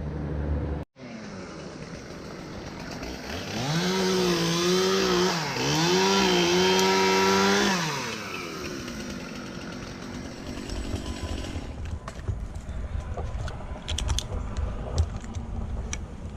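Two-stroke chainsaw revving up to full throttle about three seconds in, easing off for a moment and revving again, then dropping back down near the middle. Later come scattered sharp cracks and knocks.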